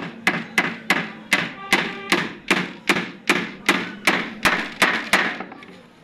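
Claw hammer striking a wooden board in a steady run of about fifteen sharp blows, roughly two to three a second, which stop near the end.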